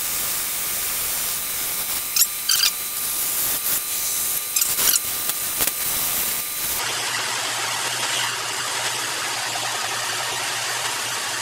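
1952 Logan 920 metal lathe running with a hemlock pulley blank spinning, with a steady high tone and a few sharp scraping streaks as the wood is worked. About two-thirds of the way through the sound changes abruptly to a steady hiss of sandpaper rubbing on the spinning wood over the lathe's low hum.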